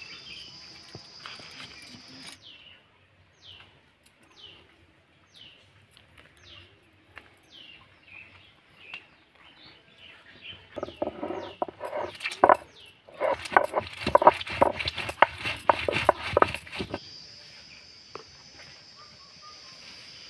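A stone muller grinding dried red chillies on a flat grinding stone (sil-batta): a run of rapid, rough scraping strokes in the middle, the loudest sound here. Before it a bird repeats a short falling call about once a second, and an insect's steady high drone is heard at the start and again near the end.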